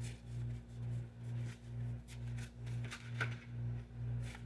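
Soft background music: a low bass tone pulsing evenly about twice a second over a steady hum-like tone. A few faint clicks, the sharpest about three seconds in.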